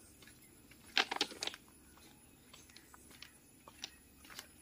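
Footsteps crunching on railway track ballast: a short run of sharp crunches about a second in, then single faint ones every half second or so over low hiss.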